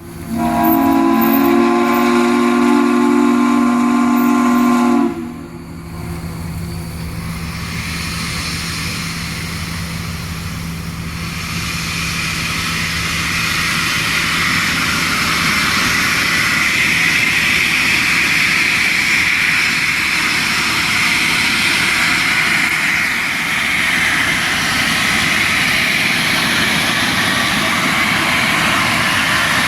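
Steam locomotive's chime whistle blown once for about five seconds, several notes sounding together, cutting off sharply. It is followed by a steady loud hiss of escaping steam that swells a few seconds later and holds.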